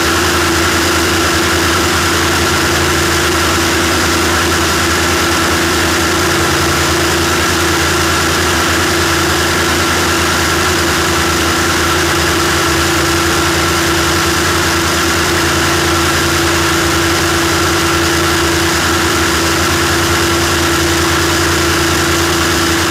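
Rolls-Royce Merlin V-12 of a modified P-51 Mustang air racer running hard in flight: a steady, loud drone heard from a camera on the tail, with a rush of wind over the airframe.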